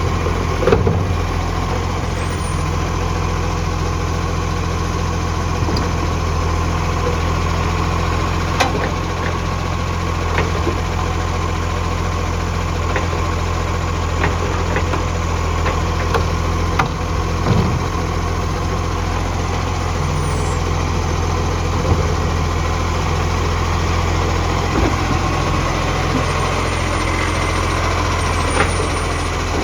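Garbage truck's diesel engine idling steadily, its note coloured by a leaking exhaust, with scattered sharp ticks over the steady hum.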